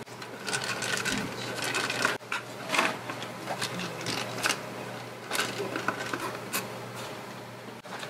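Irregular small clicks and scrapes of a precision screwdriver working screws and prying at the plastic and metal parts of an Apple AirPort Extreme router's casing, over a steady low hum.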